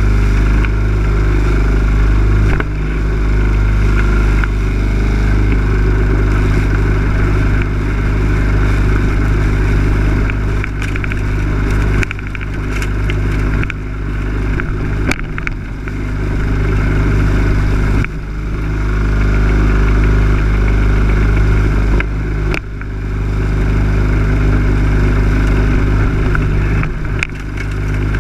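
Lawn mower engine running loud and close, its steady note dipping briefly and coming back up several times as the load or throttle changes.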